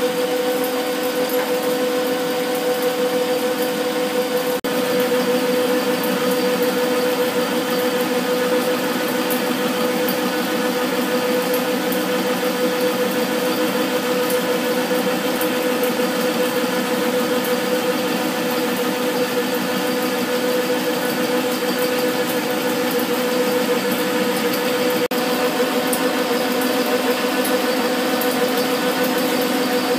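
Metal lathe running with the power feed engaged while the tool turns down a long metal tube: a steady machine hum with one strong, constant whine, brief dip about four and a half seconds in.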